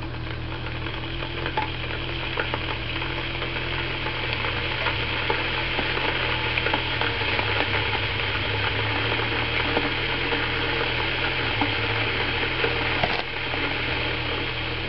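A Nikon camera's rechargeable battery, wired straight to 240-volt mains, hisses steadily with scattered crackles as it overheats and vents smoke. The hiss falls off a little near the end as the battery catches fire.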